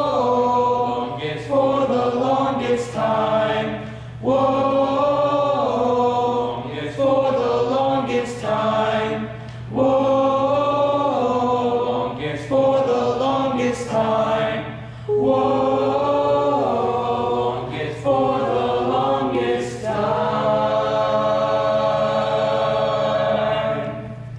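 Barbershop-style a cappella group of young male voices singing in close harmony, phrase after phrase with short breaths between, and closing on a long held chord near the end.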